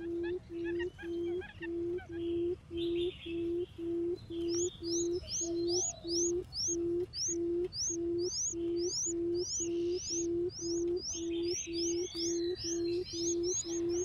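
Barred buttonquail giving the low 'um' hooting call used as a decoy call: short hoots of one steady pitch, evenly spaced at a little over two a second. Another bird's quick high chirps join about four seconds in.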